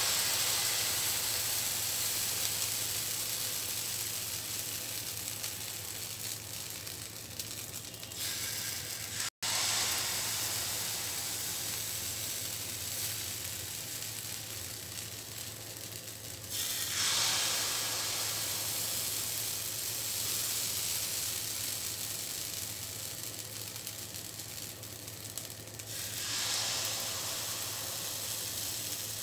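Pancake batter sizzling in an oiled four-cup pancake pan over a gas burner. The sizzle flares up sharply each time batter is poured into a fresh cup, three times, and slowly dies down between pours. The burner flame is set too high, hot enough to scorch the pancakes.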